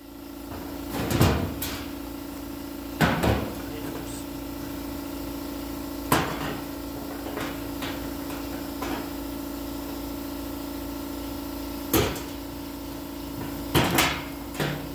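Metal locking welding clamps clanking against a sheet-metal panel as they are handled, with several sharp knocks at irregular intervals, over a steady hum.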